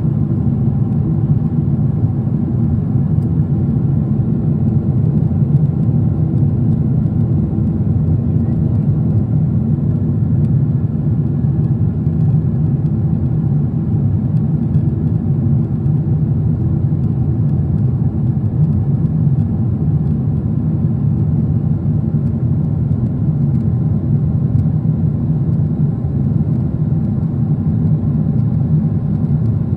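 Steady low rumble of a jet airliner's cabin in cruise: engine and airflow noise heard from a window seat, even in level, with a faint steady hum in it.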